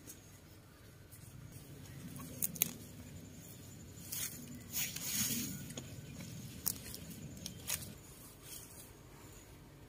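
Hands pulling carrots out of loose soil: the leafy tops rustle and the dirt scrapes and crumbles. There are a few sharp snaps and a longer rustle about halfway through.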